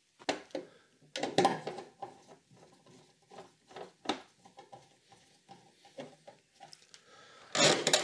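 Hand screwdriver turning the securing screw into the plastic lower cover panel of a washing machine: a run of small irregular clicks, creaks and scrapes, with a few louder knocks of tool and plastic, and a louder handling noise near the end.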